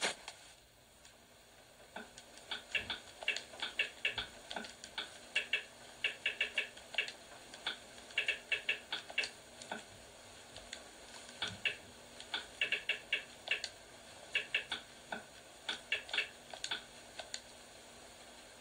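Light, sharp clicks in quick runs of several at a time, with short gaps between the runs: buttons or keys being pressed while a search is typed in.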